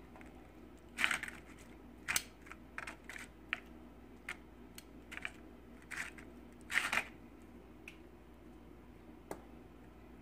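Metal kitchen tongs clicking and tortilla chips crackling as shredded chicken and pinto beans are dropped onto a plate of chips. The clicks and crunches come in short, irregular bursts for the first seven seconds or so, then thin out to a single click.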